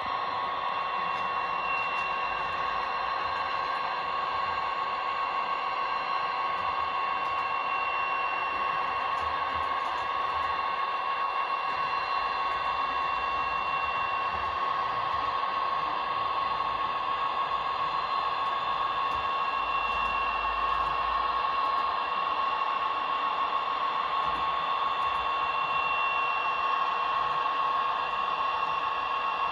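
A model diesel locomotive's DCC sound decoder playing a diesel engine at a steady idle through its small speaker: an even, slightly buzzy running sound with a steady hum, and a higher tone that comes and goes.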